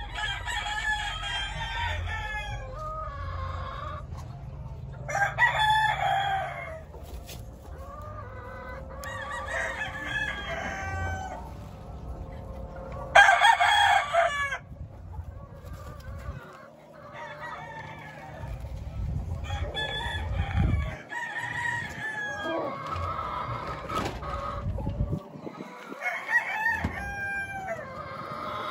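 Game roosters crowing over and over, one crow after another with clucking between; the loudest crow comes about halfway through.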